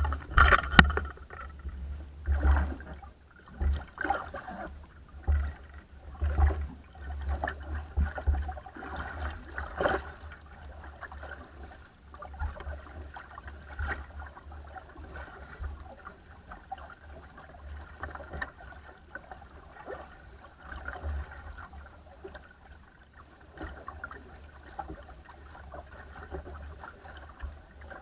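Water splashing and rushing against the hull of a small wooden sailing dinghy moving through chop, with wind buffeting the bow-mounted camera's microphone in irregular gusts. The gusts and splashes are strongest in the first ten seconds or so and settle to a steadier wash later.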